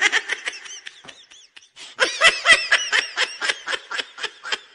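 A person laughing in two bouts of quick, rhythmic ha-ha pulses, the second and louder one starting about two seconds in.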